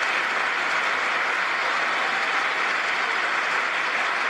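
Standing ovation: a large crowd clapping steadily without a break.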